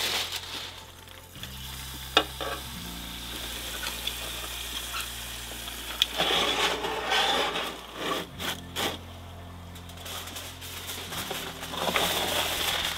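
Roast lamb sizzling in a hot metal roasting pan fresh from a wood-fired oven, with sharp metal clinks of tongs against the pan about two and six seconds in. Soft background music with low held notes runs underneath.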